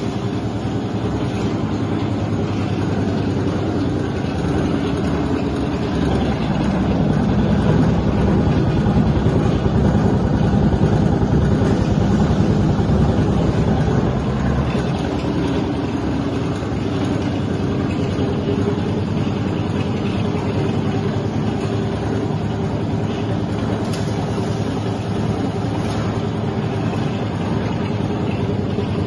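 A 2001 JAC EEL 450/11 automatic bread slicer running empty: its motor and reciprocating stainless-steel blade frames make a steady mechanical hum, a little louder for several seconds in the middle.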